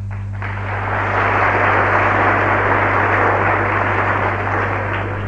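Studio audience applauding, swelling about half a second in and dying away near the end, over a steady low mains hum.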